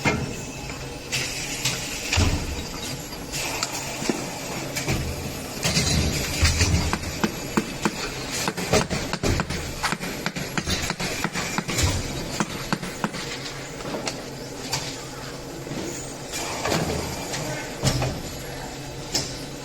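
Busy mechanical clatter: many sharp clicks and knocks over a steady noisy din, with louder bursts of banging now and then.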